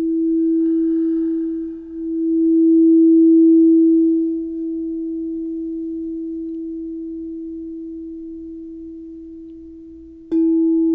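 Singing bowl giving one steady, pure tone that swells twice as its rim is played, then rings on and slowly fades. About ten seconds in it is struck again and the tone comes back suddenly at full strength.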